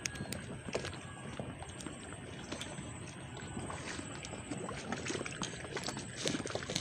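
Water lapping and sloshing at the shore, with scattered small clicks and knocks.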